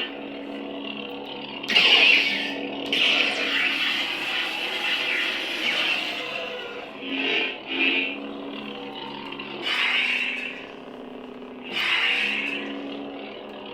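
A Proffie lightsaber runs Kyberphonic's Osha sound font, holding a steady electric hum with about six swooshing swing sounds on top. The hum is the font's end state, shifted to Qimir's red-saber sound.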